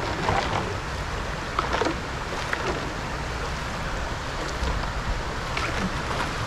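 Steady rush of flowing river water, with a few brief splashes.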